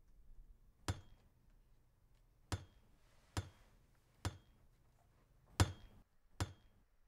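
Six hammer blows about a second apart, driving a mailbox post into the ground.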